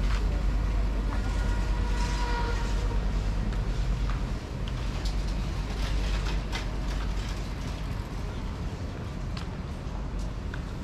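Urban street ambience: a steady low rumble of passing vehicles, with scattered short clicks and knocks. The rumble eases a little about four seconds in.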